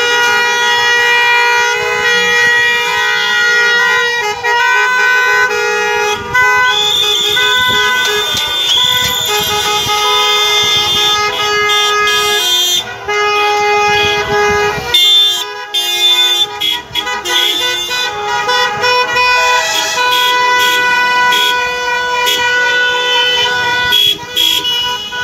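Many car horns honking at once in long, overlapping blasts from a slow-moving line of passing cars, with engine and tyre noise beneath.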